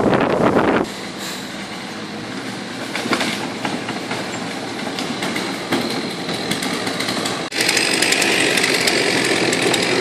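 Hitachi Zaxis 120 tracked excavator working a felled log: engine running with a steady rattle of metallic clicks and clanks. It gets much louder and closer about seven and a half seconds in.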